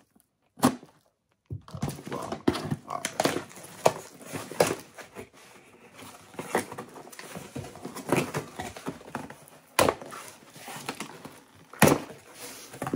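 Cardboard box and packaging being handled and opened: a busy run of rustling, scraping and small knocks, broken by a few sharper thumps.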